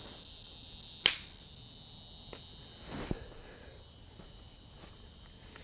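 Quiet background with a steady, thin, high insect-like drone, broken by one sharp click about a second in and a couple of fainter ticks after it.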